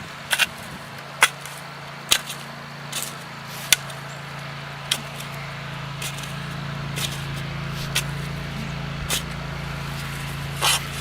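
Digging in garden soil: irregular short, sharp scrapes and chunks about once a second, over a steady low hum from an unseen motor.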